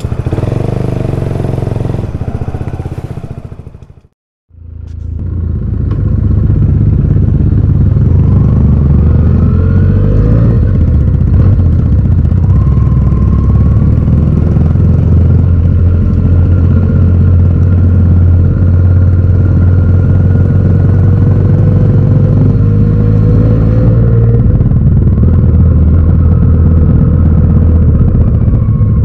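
Motorcycle ridden on the road, its engine running steadily under wind and road noise. A brief dropout comes about four seconds in, then a louder stretch of riding with the engine note rising now and then.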